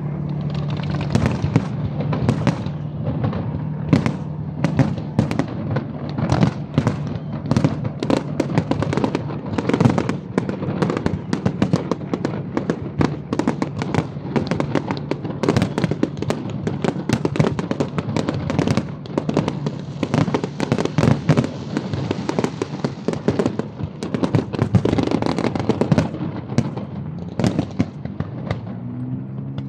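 Fireworks display: a dense, continuous barrage of bangs and crackling salvos, many shots a second with louder single reports scattered through.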